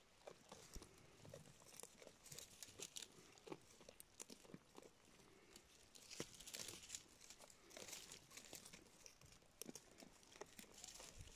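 Domestic goat browsing dry grass and twigs close by: faint, irregular crunching and tearing as it pulls at the dry stems and chews.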